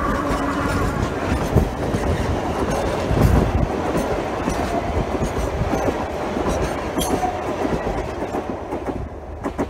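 Wooden passenger carriages of the Sóller narrow-gauge electric railway rolling past close by: a steady rumble of wheels on track, with clicks over rail joints and a heavier rumble about three seconds in.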